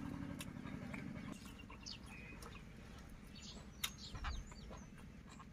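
Close mouth sounds of chewing and tearing roasted chicken, with scattered small clicks and one sharper click about four seconds in, over faint short bird chirps. A low steady hum fades out in the first second and a half.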